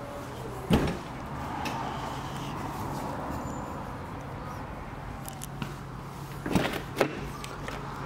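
BMW 218 Active Tourer's tailgate latching shut with one loud thud a little under a second in, over a low steady hum. Near the end, two clunks as a rear side door is unlatched and swung open.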